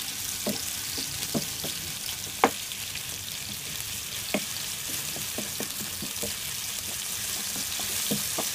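Marinated boneless chicken pieces shallow frying in a little oil in a non-stick pan over a medium flame: a steady sizzle. A spatula stirring them gives scattered light knocks against the pan, the sharpest about two and a half seconds in.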